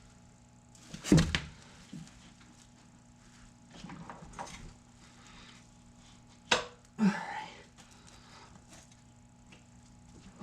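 Scattered knocks and clunks, and a sharp click, as hands and tools work a serpentine belt onto the engine's pulleys and tensioner. The loudest knock comes about a second in, and a click and a clunk follow each other a little past halfway.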